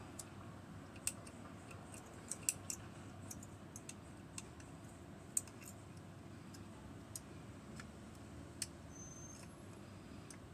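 Small, irregular metallic clicks of lever-lock picking tools working the levers inside a lever lock under light tension, a dozen or so spread unevenly, the sharpest about two and a half and five seconds in. A faint steady hum lies underneath.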